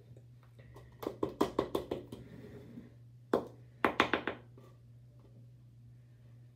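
Sharp taps in quick runs: about seven in a second, then a single tap and a few more fast taps shortly after.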